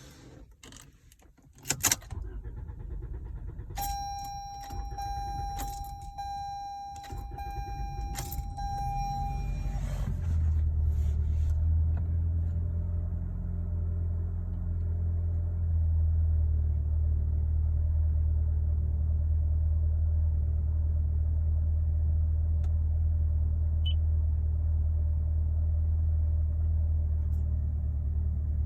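Car keys jangling and clicking, then a steady high tone for about six seconds, followed by a loud, steady low drone from the car that holds for the rest of the time.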